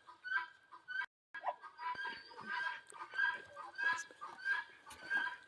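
Chickens clucking in a steady run of short calls, about two a second.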